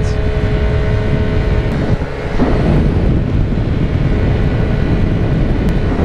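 Vespa scooter under way: heavy wind buffeting on the microphone over the scooter's steady engine hum. The hum fades under the wind about two seconds in.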